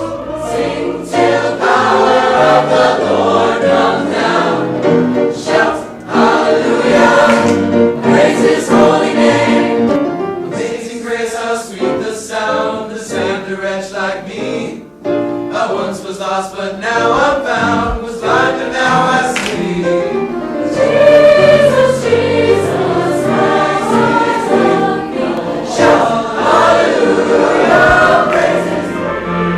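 A choir singing, loud and continuous, with short breaks between phrases.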